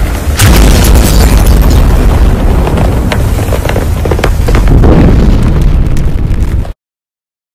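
Loud, deep rumbling boom with scattered crackles, a cinematic intro sound effect, that cuts off suddenly near the end.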